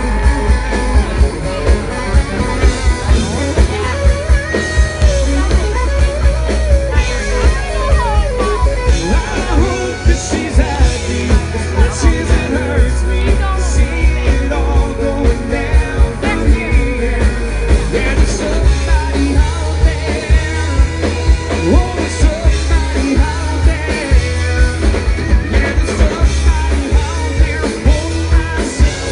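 Live rock band playing a song with a singer, electric guitars, drums and heavy bass, over a steady beat.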